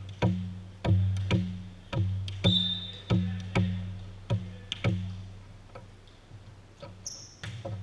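A volleyball bounced repeatedly on a hardwood gym floor, about two bounces a second, each thud ringing briefly in the hall. The bouncing stops about five seconds in, and a single sharp crack follows near the end.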